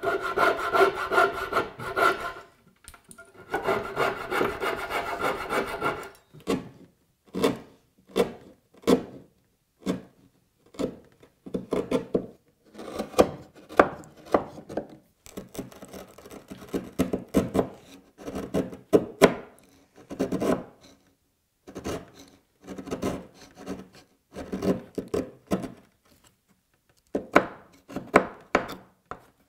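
A coping saw cutting the waste between dovetail pins in two spells of fast strokes over the first six seconds. After that, a bench chisel paring and scraping wood in short, separate strokes, cleaning up the bottoms of the dovetail sockets.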